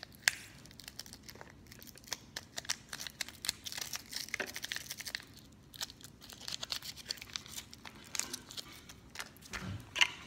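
A small shiny toy packet is crinkled and torn open by hand, a steady run of crackles and rustles. A single sharp knock comes near the end.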